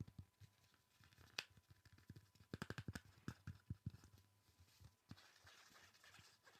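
Soft ASMR tapping in quick runs of light taps, with one sharper click about a second and a half in.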